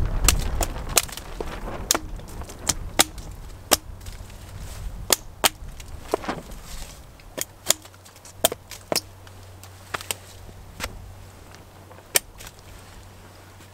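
Hatchet chopping the branches off a small tree held upright: a series of sharp, irregular wooden knocks, about one or two a second, growing sparser towards the end.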